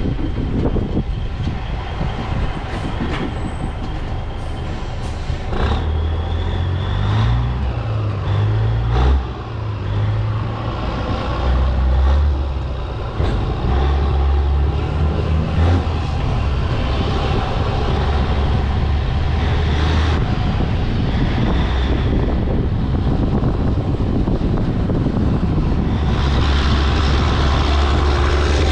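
Heavy diesel truck engine running under way, its low note rising and falling as it pulls, then settling into a steadier drone near the end. There are a few sharp clicks in the first ten seconds or so.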